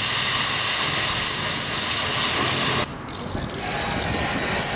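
High-pressure water spray from a car-wash jet, hissing; it cuts off abruptly about three seconds in and starts again under a second later.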